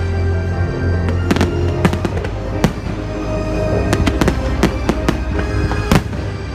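Fireworks bursting in quick succession, many sharp bangs and cracks a second apart or less, with music playing along.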